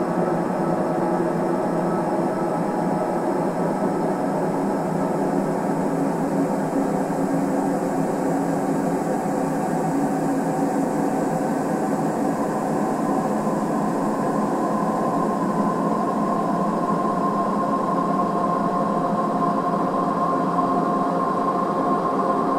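Steady, dense drone of many held tones, unbroken and without rhythm, with a higher tone growing clearer in the second half.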